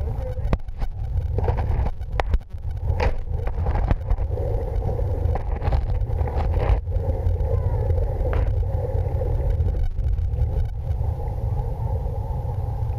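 Muffled sound picked up by a waterproof camera held underwater: a steady low rumble with scattered knocks and clicks from handling and movement in the water.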